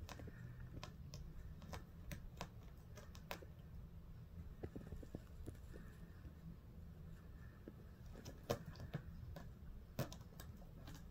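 Faint, scattered light ticks and scratches of a kitten's claws catching and scrabbling on a recliner's woven fabric upholstery, with a couple of sharper clicks in the last few seconds, over a low steady hum.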